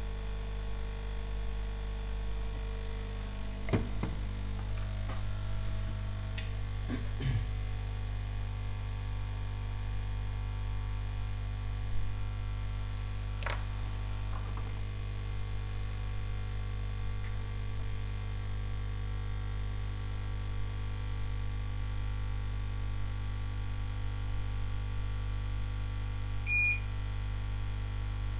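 Steady electrical hum from the electronics repair bench, with a few faint clicks in the first half and one short, single-pitched beep near the end.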